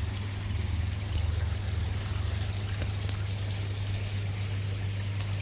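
Water steadily trickling and running into a koi pond, over a low steady hum, with a couple of faint clicks.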